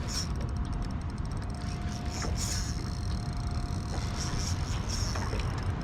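Steady low rumbling noise of wind and water around a small aluminium boat, with a few light clicks and knocks scattered through.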